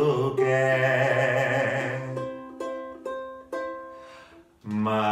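A man singing a folk song in Swiss German to his own ukulele. He holds the last word of the line for about two seconds, then three fading ukulele strums sound alone. Singing and strumming start again near the end.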